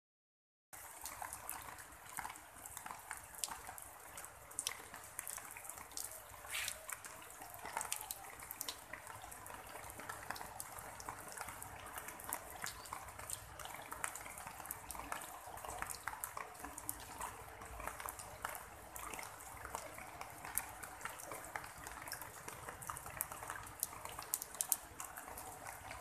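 Rain falling, with many separate drops tapping on broad leaves and wet gravel over a steady hiss; it starts just under a second in.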